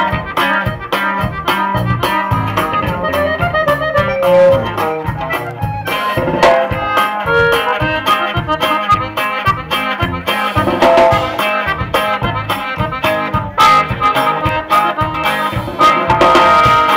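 Norteño band playing live through a PA, an instrumental passage between sung verses: accordion melody over bass and drums keeping a steady dance beat.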